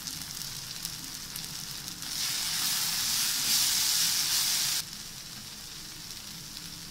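Onion-tomato masala with spice powders sizzling in a hot nonstick kadai. From about two seconds in, a louder hiss comes as it is stirred through the pan, cutting off suddenly near five seconds.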